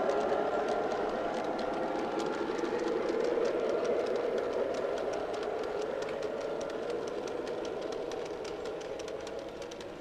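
Model train running on a layout: a steady rumble and whir with a rapid run of light clicks, slowly fading.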